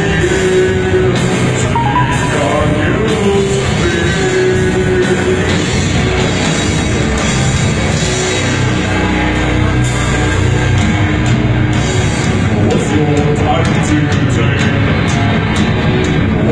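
A rock band playing live in a hall, loud and dense: guitars and drums, with a singer holding long notes in the first few seconds.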